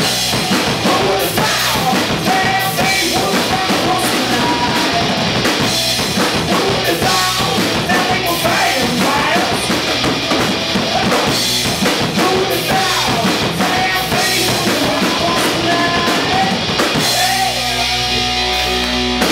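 Live rock band playing: a singer, electric guitar and drum kit, with steady drumming under the vocal line. For the last couple of seconds the band holds a sustained ringing chord.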